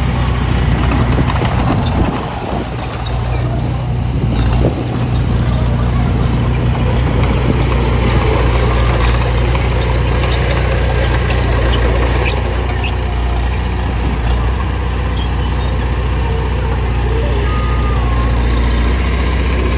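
Diesel engine of a heavy earthmoving machine running steadily under work, with a few light knocks over it.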